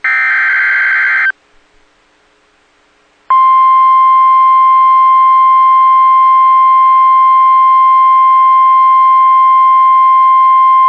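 Emergency alert broadcast signals for a severe thunderstorm warning. It opens with the end of a harsh, screeching digital data burst (the SAME header code), which cuts off after about a second. After a short pause, a loud, steady single-pitch alert tone of the kind used by NOAA Weather Radio (about 1050 Hz) starts about three seconds in and holds.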